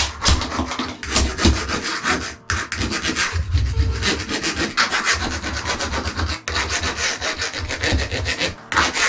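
Cured expanding foam being scraped off a fibreglass shower tray, in repeated rasping scraping strokes with a couple of short pauses.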